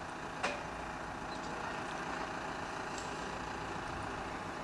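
Mobile crane's diesel engine running steadily, with a single short click about half a second in.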